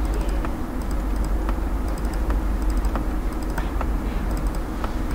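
Computer keyboard keys tapped now and then, single keystrokes spaced roughly half a second to a second apart, as the trailing space after each name in the spreadsheet cells is deleted. A low steady hum runs underneath.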